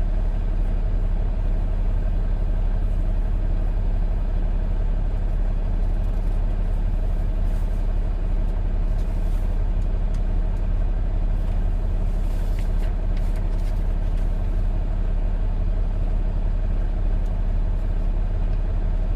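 Diesel engine of a semi-truck idling, a steady low rumble with no change in pace.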